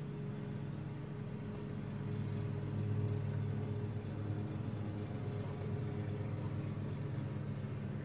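Lawn mower engine running steadily with a low, even hum that grows a little louder about three seconds in.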